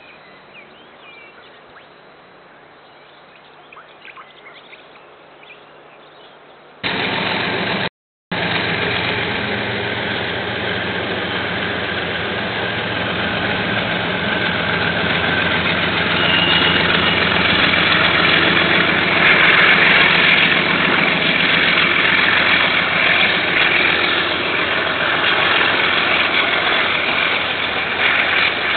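Faint outdoor background with a low hum and a few bird chirps, then a sudden jump to a loud KiwiRail diesel locomotive engine running as a train passes, growing louder over the next ten seconds or so and staying loud.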